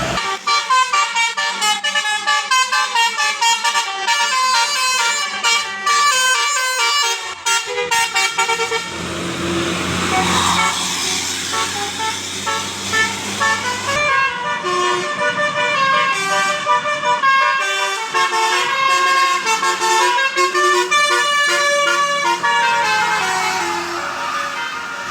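Bus 'telolet' musical air horn, a Basuri multi-tone horn, playing a rapid tune of short stepped notes. Midway a rushing noise and low drone swell up under the horn.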